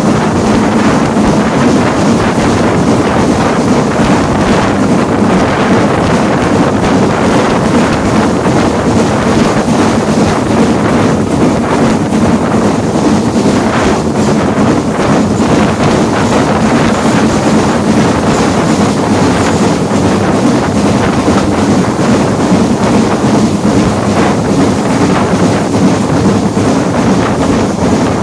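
Wind buffeting the microphone held out of the carriage window of a steam-hauled train running at speed, over the train's steady running noise.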